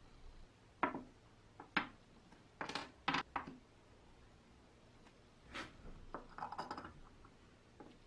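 Small polished brass sprayer fittings being handled and set down on a wooden workbench: a series of light knocks and clicks, with a quick flurry of them about six seconds in.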